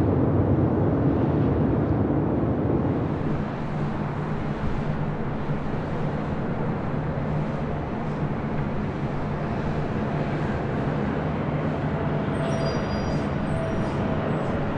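Airbus A380 jet engines running, a steady noise that is louder for the first three seconds and then settles to a lower, even level with a low hum beneath. A few faint high-pitched chirps come near the end.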